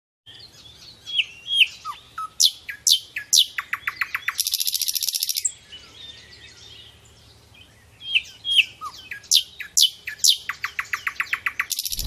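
Common nightingale singing: two song phrases of sharp whistles and quick downward-sweeping notes, each running into a fast series of repeated notes, the first ending in a harsh buzzing rattle about five seconds in.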